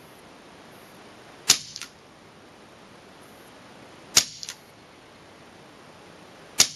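.22 FX Revolution semi-automatic PCP air rifle firing three single shots, about two and a half seconds apart, each a sharp crack followed by a fainter click.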